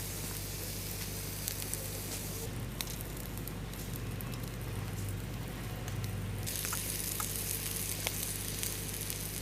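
Food sizzling as it fries, a steady hiss with scattered small pops.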